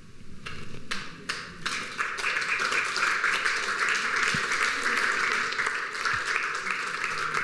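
Audience applauding: a few scattered claps that build into steady, dense applause within about two seconds.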